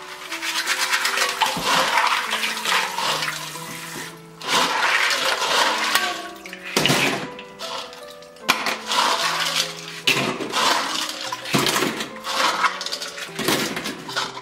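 Water sloshing and swishing in a stainless steel bowl as clams are scrubbed and rubbed together by hand. It comes in repeated bursts a second or a few seconds long, over soft piano music.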